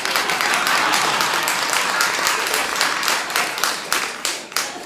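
A theatre audience applauding, many hands clapping at once; the clapping thins out and dies away near the end.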